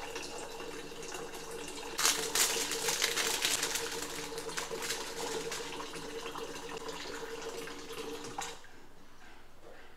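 Water running from an RO water purifier's faucet into a steel pot as its stored water is drained, with a steady tone in the stream. The sound turns louder and crackly about two seconds in, and the flow stops about a second before the end.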